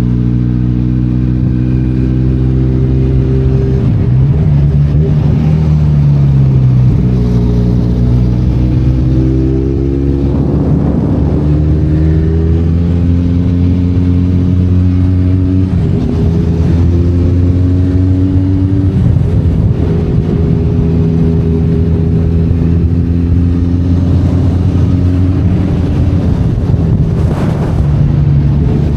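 Benelli Leoncino 500 Trail's parallel-twin engine running while riding off-road, the revs rising and falling several times as the throttle opens and closes. There are brief noisy thumps about eleven seconds in and near the end.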